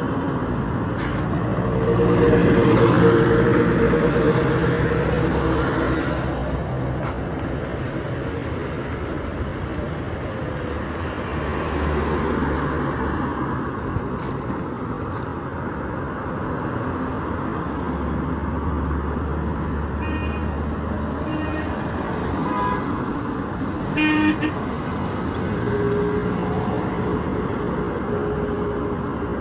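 Road traffic: vehicle engines and tyre noise running steadily, with short car horn toots, the loudest a brief toot a little past the middle.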